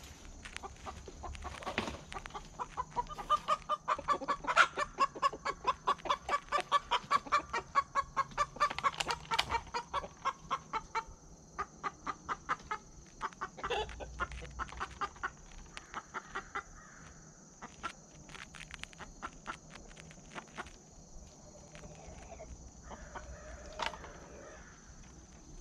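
Chicken hen clucking in a fast, even run of about five clucks a second for several seconds, then slowing to scattered clucks and a couple of short calls.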